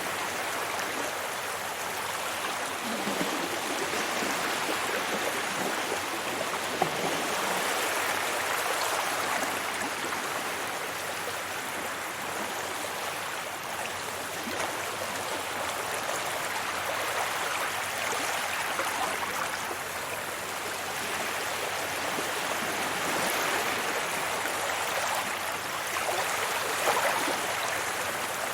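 Sea waves washing up on a beach: a continuous rushing surf that rises and falls slowly.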